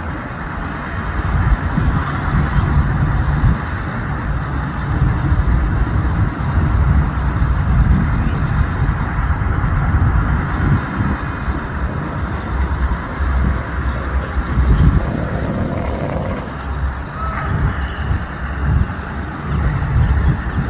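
Vehicle engines and traffic running: a steady low rumble under a continuous hiss.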